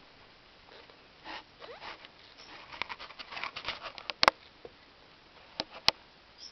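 Kittens moving about: light scratching and rustling in short scattered bursts, with two sharp clicks, about four and six seconds in, standing out as the loudest sounds.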